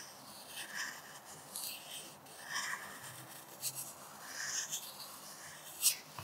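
Pencil lead scratching across paper in several short strokes while writing a cursive capital G, with a sharper click near the end.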